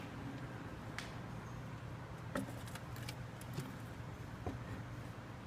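Faint steady hum with a handful of light, scattered clicks and taps at an opened engine air filter housing.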